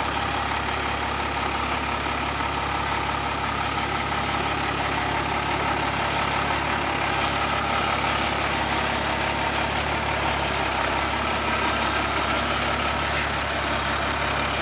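Mercedes-Benz Unimog U1700L truck's diesel engine running steadily at low revs as the truck crawls slowly along a rough 4WD track.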